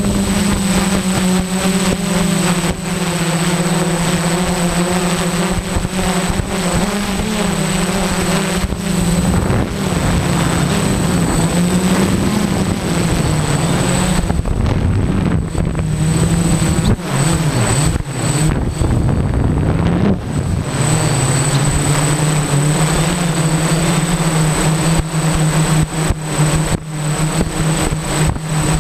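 The six motors and propellers of a DJI F550 hexacopter droning steadily, heard from its onboard camera, with wind buffeting the microphone and a thin high whine above. Between about 10 and 21 seconds in, the drone's pitch wavers and dips as the motors change speed, then it settles into a steady, slightly lower drone while the craft descends slowly and drifts with the wind.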